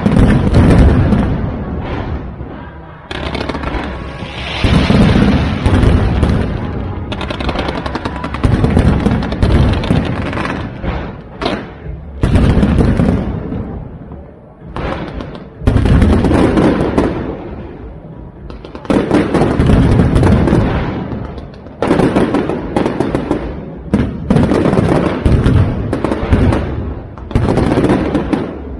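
Aerial fireworks going off in rapid volleys of booms and crackling bursts, the barrages swelling and easing in waves every few seconds.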